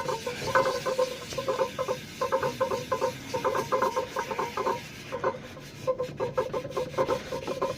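Cast-iron air-compressor cylinder head being lapped by hand on wet 280-grit sandpaper over a marble plate, rubbed back and forth in quick strokes, about three a second, each with a squeaky rasp.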